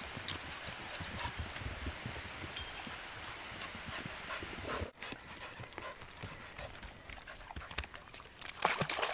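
Dogs' paws patting the ground in quick, irregular footfalls as they trot and run, with a brief break about five seconds in and louder crackling near the end.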